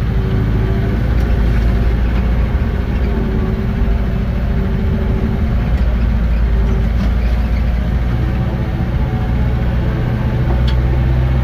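Engine of a small cabbed machine running steadily, heard from inside the cab, with its note shifting slightly about eight seconds in.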